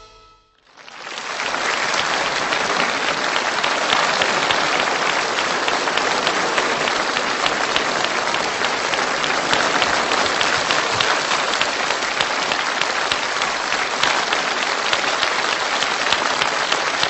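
A large audience applauding. It swells up about a second in from a brief hush and then holds steady.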